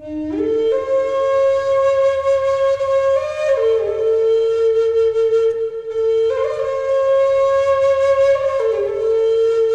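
Native American-style flute in Low D, made of Western red cedar, played in long, breathy held notes. It rises to a high note at the start, steps down about three and a half seconds in, goes back up around six seconds, and steps down again near the end.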